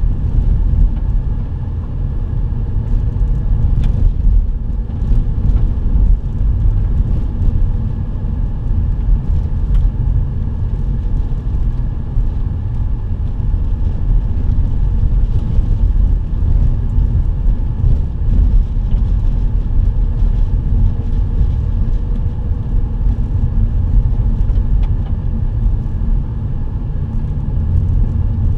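A vehicle driving on a dirt road, heard from inside the cab: a steady low rumble of engine and tyres on the dirt, with scattered small ticks and rattles.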